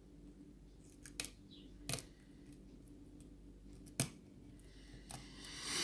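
Lock pick and tension wrench working in a six-pin tumbler lock: a few separate sharp clicks of pins and tools, the loudest about four seconds in, and a short rustling swell near the end.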